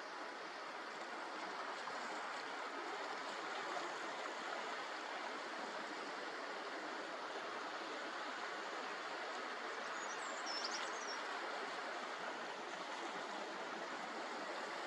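Steady rushing of sea water along the shore, with a brief cluster of high, thin bird chirps about ten seconds in.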